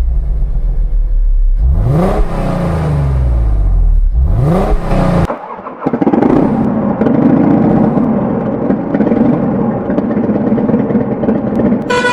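Truck engine sound effects: an engine revving up and falling back twice, cut off about five seconds in, followed by a different engine running steadily.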